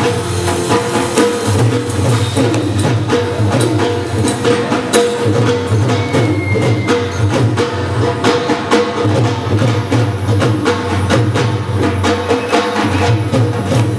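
Mumbai-style banjo party band playing dandiya music: fast, steady percussion beats under held melody notes.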